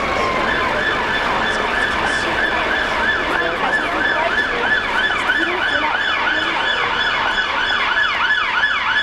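Emergency-vehicle siren on a fast yelp, its pitch sweeping up and down about three times a second, taking over from a slow falling wail right at the start. Busy city-street noise of traffic and crowds lies underneath.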